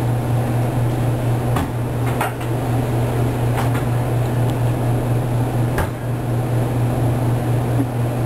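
A steady low hum of lab equipment or ventilation, with a few sharp clicks of a glass Pasteur pipette tapping the inside of a test tube while it mixes the cell suspension and Trypan Blue.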